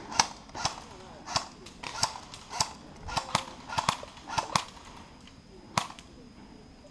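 Airsoft guns firing single shots: a string of sharp clacks at uneven spacing, then one more after a short pause.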